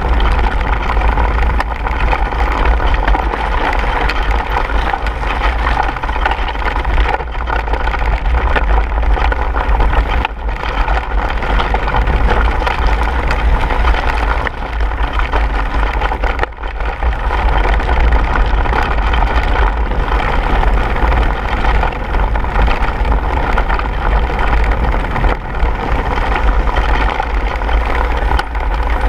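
Wind rushing over an action camera's microphone as a mountain bike descends fast over a rocky trail, with a constant clatter and rattle from the tyres and bike over the stones. It is loud and steady, easing briefly twice.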